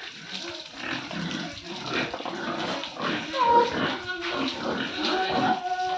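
Pigs grunting and squealing, close together and irregular, with a short higher squeal about three and a half seconds in.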